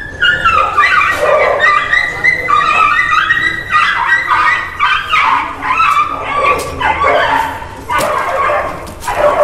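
High-pitched animal whining and yelping, repeated cries that break off and start again throughout.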